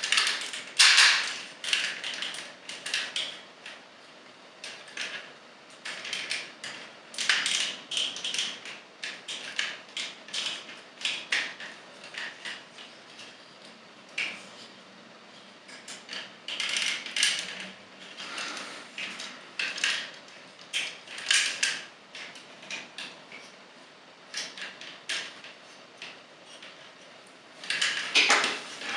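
Plastic Takara Legends Sixshot transforming-robot figure being handled and reworked by hand: irregular clicks, snaps and rattles of its plastic parts and ratcheting joints, in clusters with short pauses between.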